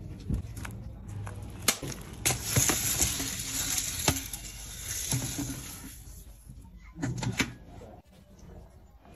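Dried maize kernels poured from a metal canister into the iron chamber of a popcorn cannon, a grainy rattling hiss, with several sharp metal clanks and knocks as the canister strikes the cannon's mouth.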